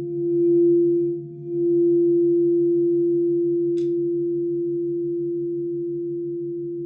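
Singing bowl sounding one sustained ringing tone with a regular wavering beat. It swells and dips over the first couple of seconds, then slowly fades as it rings on. A small click comes about four seconds in.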